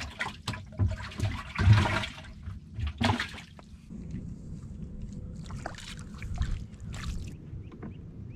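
Water splashing and trickling in irregular bursts for the first few seconds, then quieter lapping with a few small clicks.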